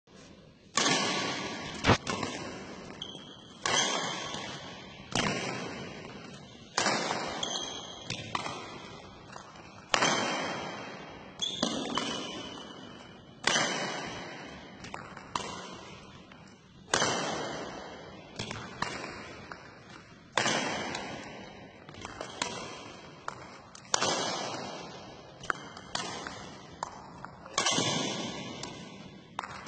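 A series of sharp impacts, roughly one every second and a half, each ringing out and dying away slowly in an echoing space.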